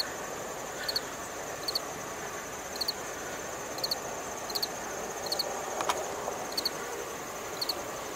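Field insects chirping in the dry prairie grass: short high double and triple chirps about once a second over a steady high-pitched buzz. A brief faint tick about six seconds in.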